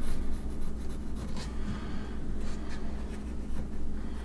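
Pencil scratching on the bare wood of a door frame in short, irregular strokes as an outline is marked, over a steady low hum.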